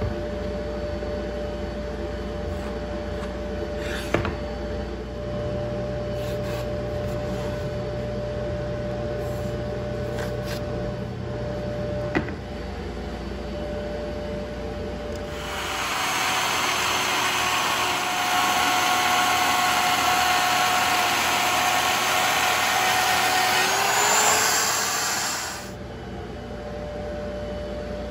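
Handheld router cutting a rabbet along a plywood cabinet panel: a loud whine that runs for about ten seconds, rises in pitch just before it stops, then cuts off. Before it there is a steady shop hum with a couple of sharp clicks.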